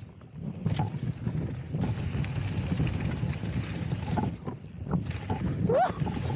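Downhill mountain bike descending a loose gravel dirt trail at speed: wind buffeting the action camera's microphone over a steady rumble of tyres on gravel, with knocks and rattles from the bike over bumps. A short rising squeak sounds near the end.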